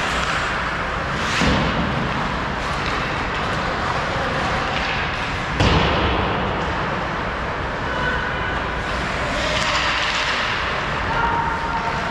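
Ice hockey game sounds: skates scraping across the ice over steady arena noise, with one sharp thud about halfway through.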